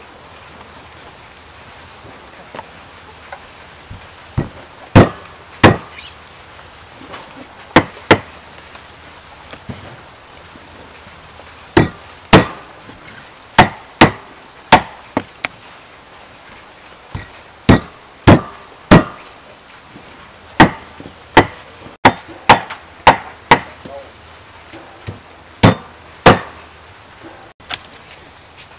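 Cleaver chopping a raw duck into pieces on a chopping board. Sharp single chops start a few seconds in and come at irregular intervals, often in pairs or quick runs, with short pauses between.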